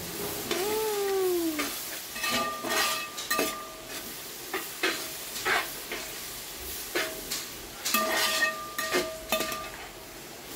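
A metal utensil stirring and scraping sizzling onion and green chilli frying in a pan. The clanks ring on a steady pitch and come in two busy spells, about two seconds in and again about eight seconds in.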